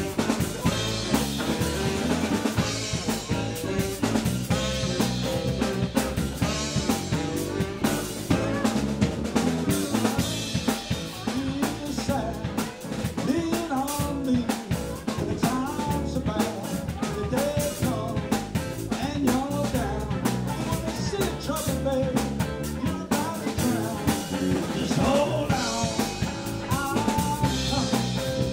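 Live blues and soul band playing an instrumental passage: drum kit with snare and rimshot hits over bass guitar, with a lead melody line that slides up and down in pitch.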